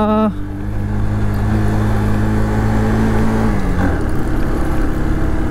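Motorcycle engine pulling hard up a steep climb, running steadily; its note drops a little about three and a half seconds in.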